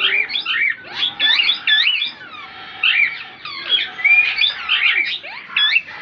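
Parrots in an aviary calling: a quick, busy run of sharp chirping squawks, each swooping up and down in pitch, many overlapping.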